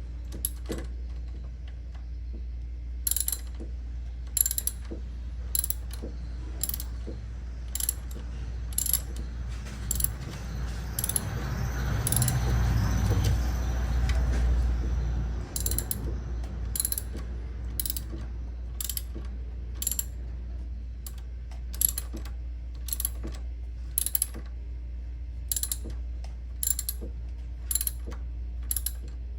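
Ratchet wrench clicking, about one click a second, as it turns the accessory-belt tensioner's adjusting bolt to tighten the worn, squealing alternator belt. Near the middle there is a louder stretch of noise for a few seconds.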